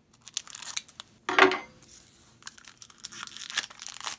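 A Magic: The Gathering booster pack's foil wrapper being torn open and crinkled, a run of sharp crackles with one louder rip about a second and a half in.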